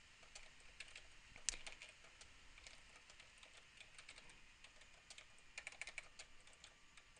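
Faint typing on a computer keyboard: scattered key clicks, coming in a quicker run between about five and a half and seven seconds in.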